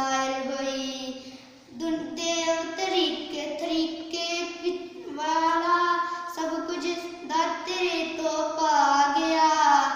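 A young girl singing a Punjabi poem in long held notes, with a short pause about a second and a half in.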